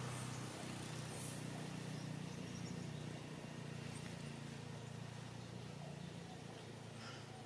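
Low steady hum of a distant engine, slowly fading toward the end, over faint outdoor background hiss.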